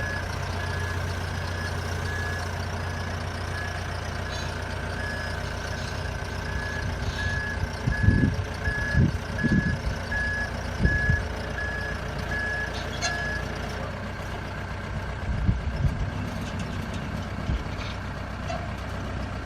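A vehicle's reversing alarm beeping about once every three-quarters of a second over a steadily running engine; the beeping stops about 13 seconds in. Several low thumps come in the middle and again near the end.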